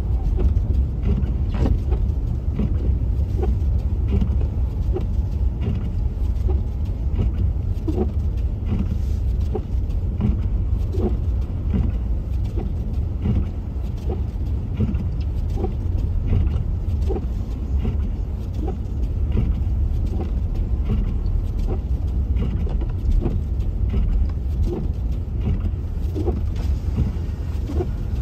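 Car driving, heard from inside the cabin: a steady low road rumble with irregular small knocks and ticks over it.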